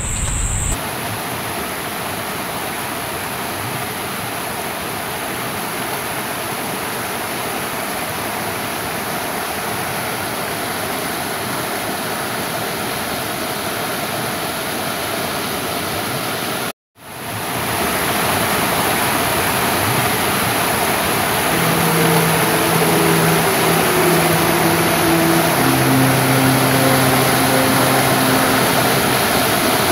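Floodwater rushing over a waterfall: a steady, dense rush of water noise. It drops out briefly a little past halfway, then returns slightly louder. In the last third, faint steady tones that change pitch in steps come in over it.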